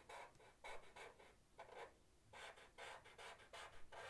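Sharpie marker tip scratching on paper in a quick run of short zigzag strokes, faint, with a brief pause a little before halfway.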